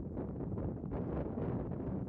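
Wind buffeting the microphone: a steady low noise with no distinct events.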